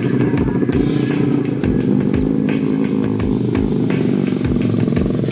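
Dirt bike engines running at idle, under background music with a steady beat.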